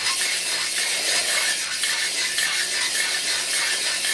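Three-stone flexible-shaft cylinder hone spun by a slow-running drill, its oiled stones rubbing up and down the cylinder wall of a Briggs & Stratton 14.5 HP OHV block: a steady scraping. The stones are deglazing the bore and cutting a crosshatch pattern for a rebuild.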